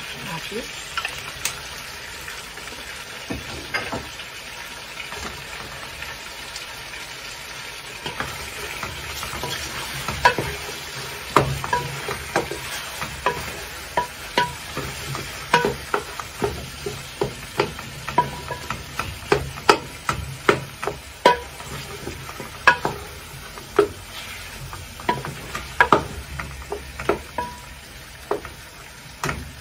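A wooden spoon stirring food in a large metal cooking pot, knocking against the pot's sides again and again, irregularly, from about eight seconds in. Under the knocks, the contents fry with a steady sizzle.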